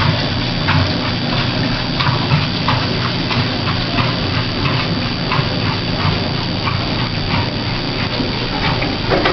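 Electrolux (Prosdócimo) washing machine running, water churning and sloshing in the tub in repeated swishes.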